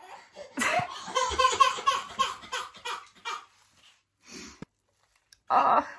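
Laughter: a fast run of ha-ha pulses lasting about two and a half seconds, then two shorter outbursts near the end.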